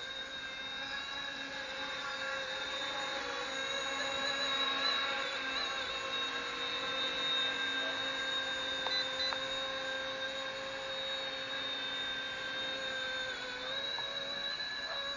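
ERA C190 Airbus H145 scale RC helicopter in flight, its motor and rotor giving a steady high whine, with a brief dip and recovery in pitch near the end.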